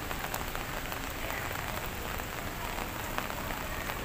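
Steady rainfall: an even hiss of rain on pavement and foliage, with scattered sharp taps of individual drops.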